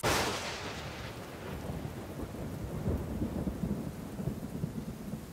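Thunderstorm: a sudden clap of thunder at the start, then steady heavy rain with a rumble of thunder underneath.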